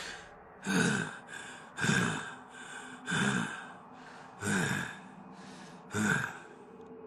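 A man breathing hard: five heavy, gasping exhales with some voice in them, roughly one every second and a bit, each dropping in pitch.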